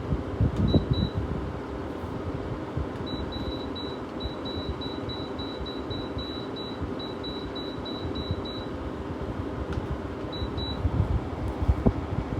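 Gold Star window air conditioner's fan running steadily while its control panel beeps. There are two short high beeps about a second in, then a quick run of about three beeps a second for some five seconds, then two more near the end, as its settings are stepped through.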